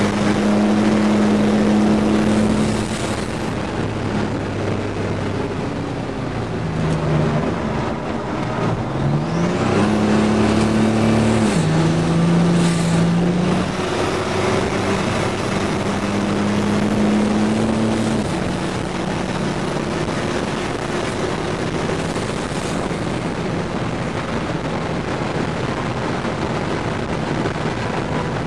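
GMC Syclone's turbocharged 4.3-litre V6 heard from inside the cab at speed, its note holding steady, then falling off and climbing again as the truck lifts and accelerates, with a step down in pitch at a shift. A steady rush of wind and road noise runs underneath.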